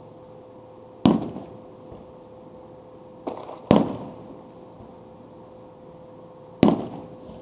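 Aerial fireworks shells exploding: three loud bangs about a second, nearly four seconds and six and a half seconds in, with a smaller bang just before the second, each trailing off in a short echo.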